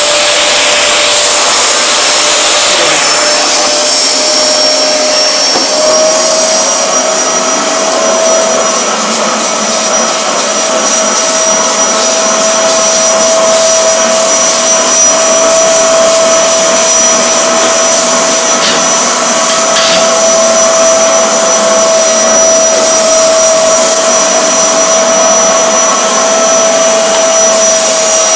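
Eureka Forbes X-Force vacuum cleaner running steadily, pulling dust into a clean handkerchief held over the nozzle. Its motor whine holds one pitch over the rush of air, rising slightly about six seconds in.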